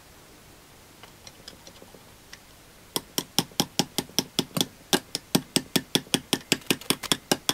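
Small brass hammer tapping a flat screwdriver held against a differential shim, driving the shim down into the housing beside the carrier bearing. A few light taps about a second in, then rapid, even metal-on-metal taps, about five or six a second, from about three seconds in.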